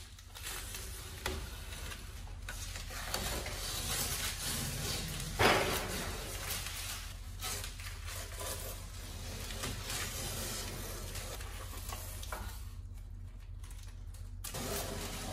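Scraping, rubbing and clinking of a fiberglass bumper and its metal brackets and bolts being fitted to the car, with scattered clicks and one louder scrape about five and a half seconds in, over a low steady hum.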